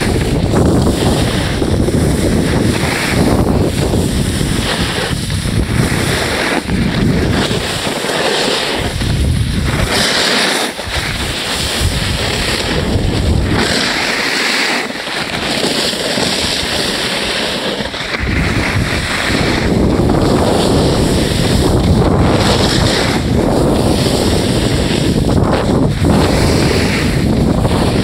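Wind buffeting the microphone of a camera moving fast down a ski slope, a loud, gusty rumble, with the hiss and scrape of sliding over packed snow swelling and fading, strongest through the middle.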